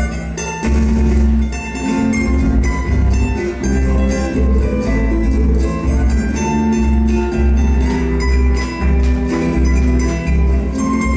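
Andean folk music in the style of a cueca: plucked strings playing a melody over a heavy, pulsing bass line.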